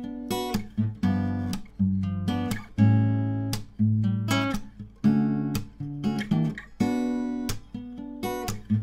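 Acoustic guitar strummed in a steady rhythm, each chord stroke ringing on until the next. It is recorded unedited through a Rode NT1A condenser microphone.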